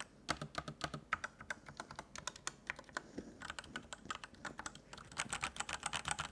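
Typing on a Hator Starfall mechanical keyboard with Outemu Red linear switches: a quick, irregular run of key clicks.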